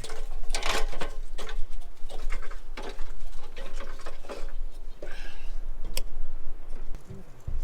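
Irregular clicking and clattering of a Christmas light string's plastic clips and bulbs being handled and fitted along a roof edge, with one sharp click about six seconds in.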